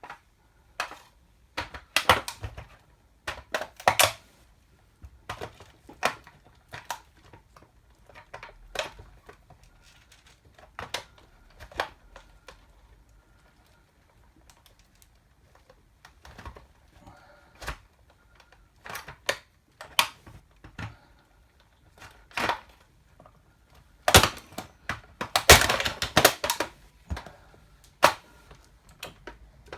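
A toy car being stepped on and crushed under high-heeled platform shoes: irregular sharp clacks and cracks of hard heels on the toy, with a dense flurry of louder cracking near the end.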